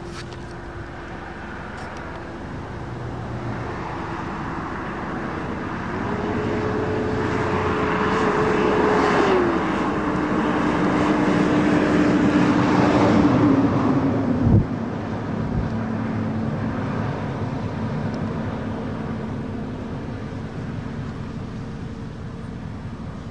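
Gusty wind rising and falling over a steady motor hum. The hum steps up in pitch, drops back, and then winds down sharply with a knock about two-thirds of the way through.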